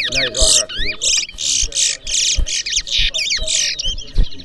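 Towa-towa (chestnut-bellied seed finch) singing a fast competition song of sliding whistles and buzzy trills, with a few short low knocks underneath.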